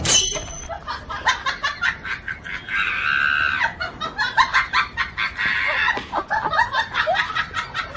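Agitated hens squawking and clucking in rapid short calls, with a sharp cry at the very start and a longer squawk about three seconds in.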